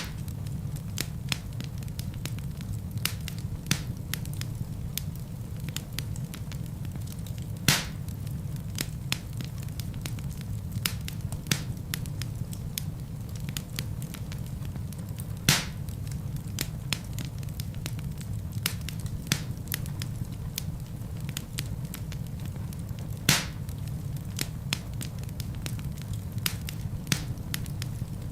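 Wood fire crackling in a fireplace: a steady low rumble with many small crackles and a louder sharp pop about every eight seconds.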